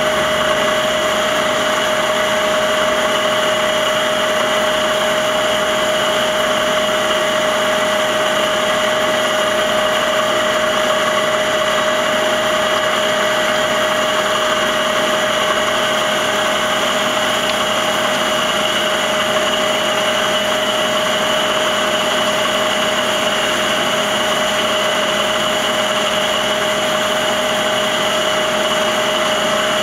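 Traub TNS-26-DGY CNC turning center running under power, a steady machine hum with a constant whine that does not change.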